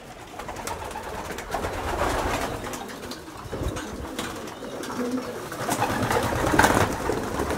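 Domestic pigeons cooing while they feed, with scattered light taps and rustling among them.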